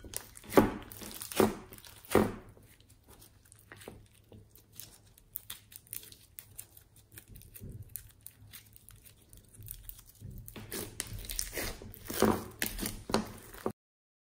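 Hands squishing and stretching fluffy slime with small beads in it. Three loud squelching pops come in the first two seconds, then a long run of soft crackling, then more squelches near the end before the sound cuts off suddenly.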